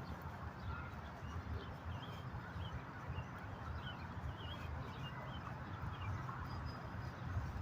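Small birds chirping in short, scattered calls over a steady low rumble of background noise.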